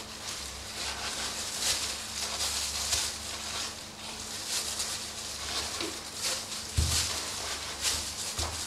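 A knife trimming raw pork shoulder meat on a stainless steel table, with plastic gloves rustling: irregular soft scratching and rustling over a steady low hum, and a dull bump about seven seconds in.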